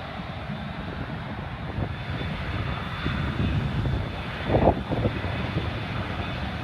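Airliner engines rumbling steadily, with a faint high whine above the rumble. A brief louder noise comes about two-thirds of the way through.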